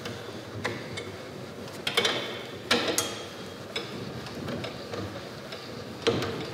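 GEDORE KL-5501 B stationary spring compressor being cranked to release spring tension on a MacPherson strut: a series of irregular metallic clicks and clunks from the spindle mechanism, about seven, roughly half a second to a second apart.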